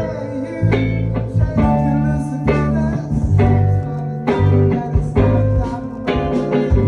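A live band playing: guitar chords struck in a loose rhythm over a deep, sustained bass line.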